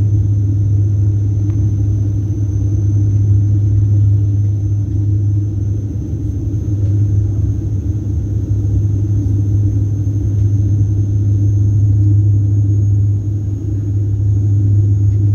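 Airliner cabin noise during the descent to landing: a loud, steady low drone of engines and airflow, with a thin, steady high whine above it.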